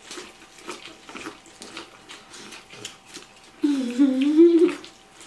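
Two people eating corn on the cob fast, with many short crunching and smacking bites and chews. About three and a half seconds in, one of them lets out a loud hummed "mmm" that lasts about a second.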